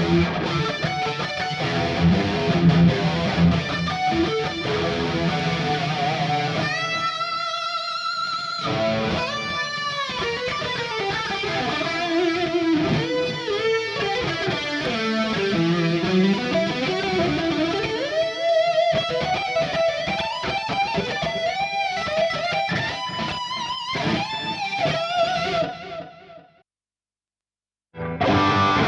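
Electric guitar played through a Fractal Audio FM9 amp modeler: chunky rhythm playing at first, then a lead line with bends and vibrato. The playing stops for about a second and a half near the end, then starts again.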